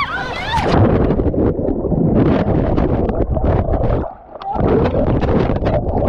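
Churning whitewater and splashing close on the microphone as a tube runs the rapids, with water hitting and buffeting the mic in dense, irregular slaps. There is a brief drop-out about four seconds in.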